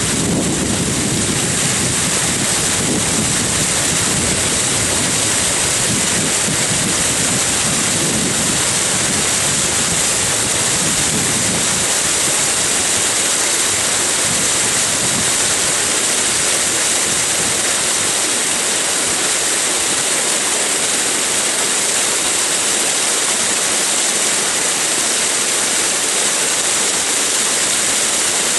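Muddy water pouring over a concrete dam spillway: a steady, loud rushing hiss. A lower rumble under it thins out about twelve seconds in.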